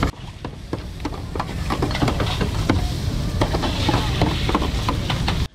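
A metal spatula scraping and clinking irregularly against a large flat steel frying tray as noodles are stir-fried, over a faint sizzle.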